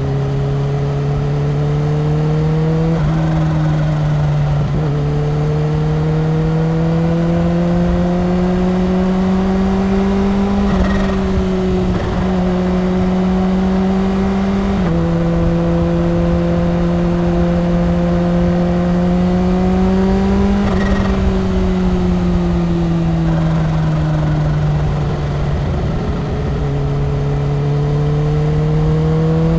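Kawasaki Ninja H2's supercharged inline-four engine running at highway speed. Its pitch climbs slowly as it pulls and sinks as it eases off, with a few sudden steps in pitch along the way.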